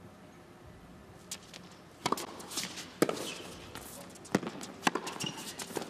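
Tennis ball struck by rackets in a doubles rally: a serve about two seconds in, then a quick exchange of volleys, about five sharp hits in all.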